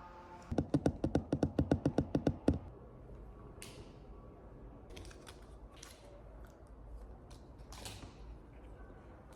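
Rapid clicking: a fast, even run of about seventeen sharp clicks over two seconds, then scattered softer taps and clicks.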